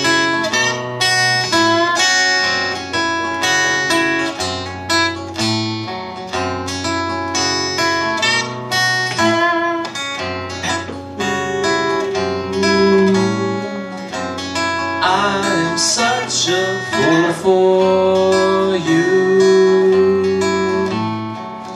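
Steel-string cutaway acoustic guitar strummed in a steady rhythm of chords: an instrumental passage of a singer-songwriter's song.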